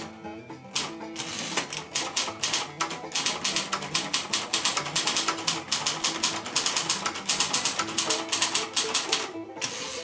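Royal ultraportable manual typewriter (a Silver-Seiko-built variant of the Royal Mercury) being typed on at a quick, steady pace, a rapid run of sharp clacks with a short pause near the end. Background guitar music plays under the typing.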